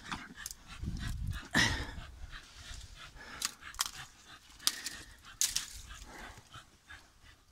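Hunting dogs panting while they worry a killed badger, with scuffling over leaves and stone and a few sharp clicks and knocks.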